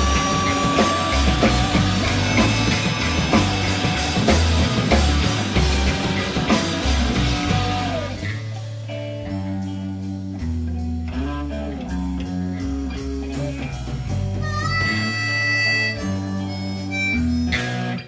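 Live rock band playing loudly with a drum kit for the first half. The drums then drop out, leaving a stepping bass line and held high notes. The music cuts off at the very end.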